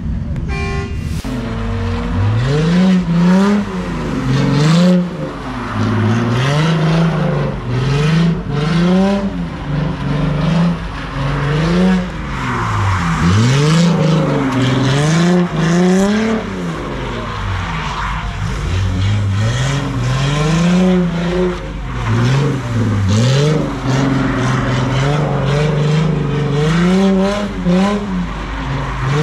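A car engine revved hard again and again, its pitch climbing and dropping roughly once a second, with tyres squealing: a car doing sideshow stunts such as donuts or burnouts.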